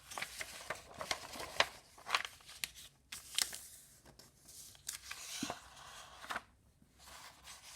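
Paper rustling and crinkling as a book's pages are turned and handled, with scattered small taps and clicks.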